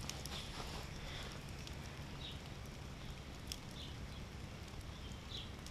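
Quiet campfire with scattered faint crackles over a steady low hiss from the coals.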